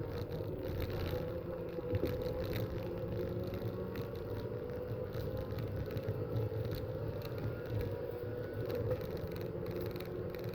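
Racing car engine running steadily, heard muffled and distorted.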